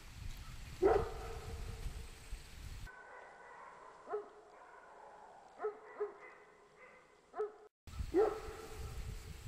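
Maremma sheepdog barking: about six single barks, spaced a second or more apart, with a low rumble on the microphone underneath.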